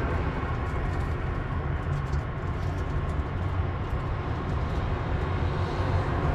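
Steady outdoor background noise: a low rumble under a hiss, with no clear single event.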